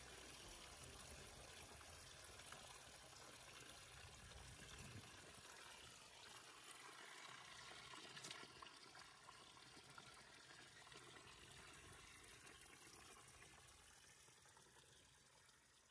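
Faint, steady trickle of water spilling over the rim of an overflowing water trough, fading out near the end.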